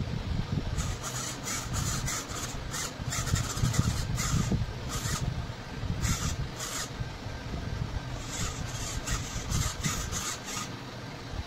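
Steering servo of a home-built RC car whirring in short bursts as it swings the front wheels from side to side, in three clusters with pauses between, over a low rumble.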